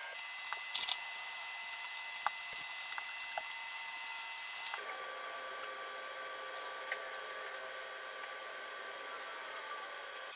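Steady low hiss with a few faint, sharp clicks scattered through it. The background tone changes abruptly about five seconds in.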